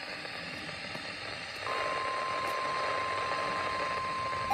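Radio static hiss, then about a second and a half in a single steady tone near 1 kHz starts and holds: the NOAA Weather Radio 1050 Hz warning alarm tone, which signals that a warning message is about to follow.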